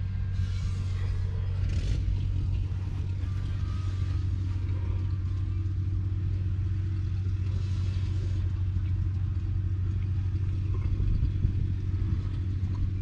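Muir-Hill 121 tractor's 6.2-litre six-cylinder diesel engine idling steadily, a constant low drone with no change in speed.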